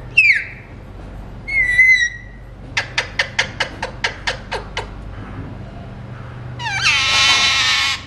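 Alexandrine parakeet calling: a short falling whistle, then a second pitched call, then a quick run of about ten sharp clicking chirps. A long, loud, harsh squawk comes near the end and cuts off suddenly.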